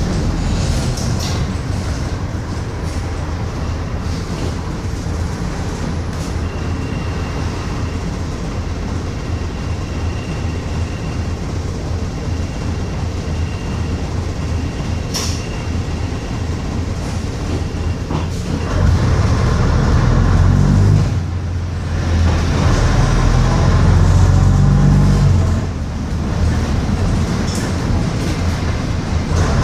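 Bristol RELL6L rear-engined single-deck bus, fitted with a non-original engine, heard on board running along with its body rattling. About two-thirds of the way in the engine note rises and pulls harder, with two brief drops in between that sound like gear changes.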